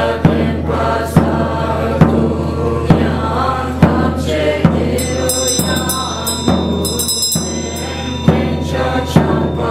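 Tibetan Buddhist monks chanting in unison in low voices, with a large frame drum struck with a curved beater at a steady beat, a little more than once a second. From about five to eight seconds in, a hand bell rings in quick shakes over the chant.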